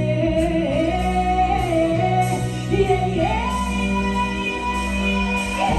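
Live stage show music: a woman singing a slow, held melody over a band, her voice stepping up to a higher note about three seconds in.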